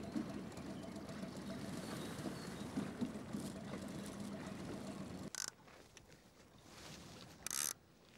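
Boat motor running steadily at slow trolling speed, with water and wind noise. About five seconds in it gives way to quieter lake ambience, broken near the end by a short burst of rushing noise.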